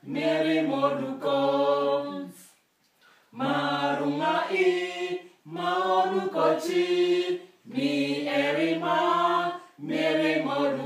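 A small group of adults singing an unaccompanied letter-sound chant in Lugbarati, in short sung phrases of about two seconds each with brief breaths between them.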